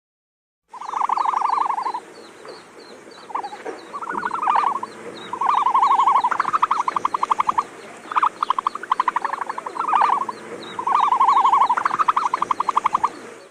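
Animal calls: repeated bouts of fast, rattling pulsed trills over a steady background chorus with a regular high ticking. The calls begin about a second in and cut off abruptly at the end.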